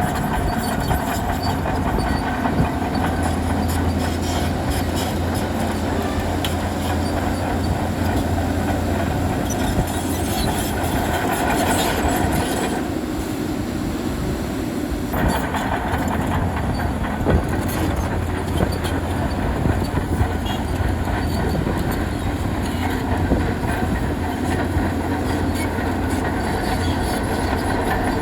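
Large crawler bulldozer working: its diesel engine running steadily under load while the steel tracks clank and clatter continuously.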